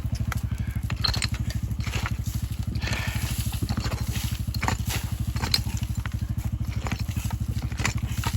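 Motorcycle engine idling with an even, low, pulsing beat of about nine or ten strokes a second. Scattered light clicks and knocks sound over it.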